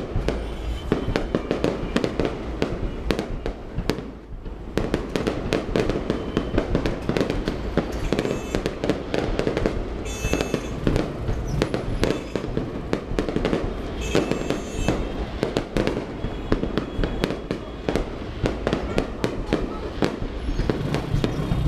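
Large aerial fireworks display: a dense, continuous barrage of bangs and crackles over a deep rumble, easing briefly about four seconds in.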